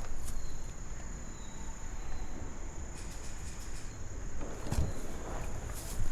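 Steady high-pitched insect drone over muffled low rumble, with a few sharp clicks scattered through it.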